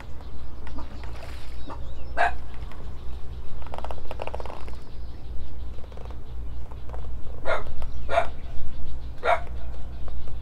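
A dog barking: short single barks, one about two seconds in and then four in fairly quick succession near the end, over a steady low rumble.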